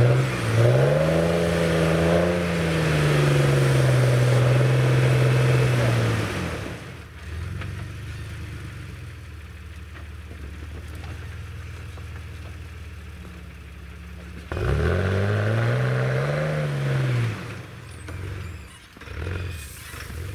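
A 4x4's engine revving for several seconds, its pitch climbing and then sagging, before dropping back to a quieter idle. About two-thirds of the way through it revs up and back down once more, followed by two short blips of the throttle near the end.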